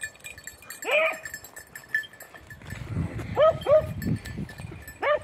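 Beagles baying in short, yelping calls while working a hare's scent: one call about a second in, two close together a little past halfway, and another at the end.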